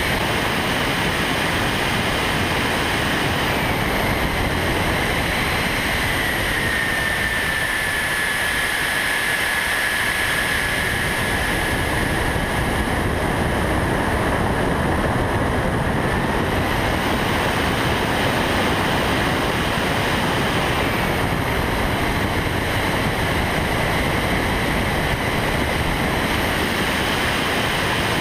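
Wind rushing over the onboard camera's microphone of an RC model plane in flight, with a high motor and propeller whine. The whine drops in pitch about six seconds in and climbs again around seventeen seconds, as the throttle changes.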